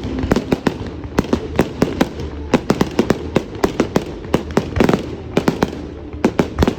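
Fireworks going off in a rapid, irregular string of sharp bangs and crackles, several a second, over a low rumble.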